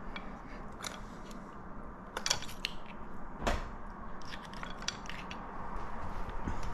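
A metal fork clicking and scraping against steamed mussel shells in a ceramic bowl as the meat is picked out. Scattered light clicks, coming more often over the last two seconds.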